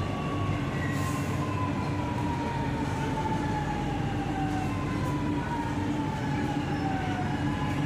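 Chennai Metro train running, heard from inside the passenger car: a steady rumble and hiss with a faint whine that slowly falls in pitch, twice.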